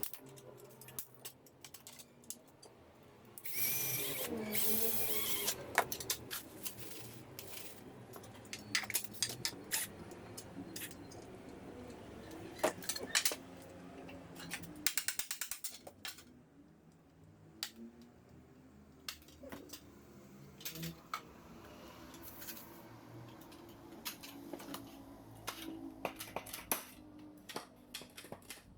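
Clicks, taps and knocks of parts and hand tools being handled while a plastic electrical box and outlet are assembled, with a louder rasping, ratchet-like noise for about two seconds near the start. Quiet background music plays underneath.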